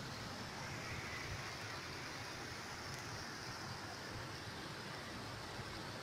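Sea waves breaking over a rocky shelf and washing through the rock pools: a steady, even rush of surf with no single crash standing out.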